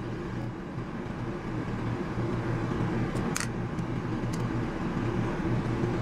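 A steady low mechanical hum, with a couple of faint small clicks about three and four seconds in as a screwdriver turns out the screws holding an RV furnace sail switch to its mounting plate.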